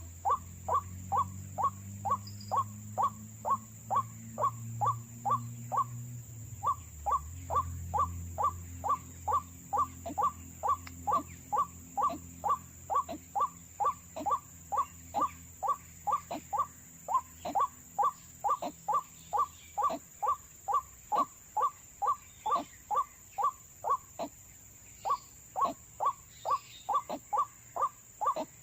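White-breasted waterhen 'wak-wak' call, a short note repeated steadily about twice a second with no change in pitch, broken by two brief pauses in the last third.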